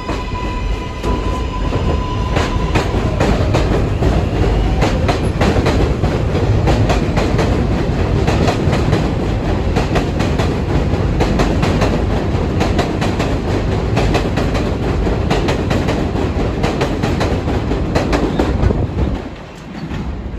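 R188 subway train running, its traction motors giving a rising whine that levels off and fades within the first few seconds. Then a long run of rapid clicks and clatter from the wheels over rail joints and switch points as the train crosses onto the express track, over a steady rumble.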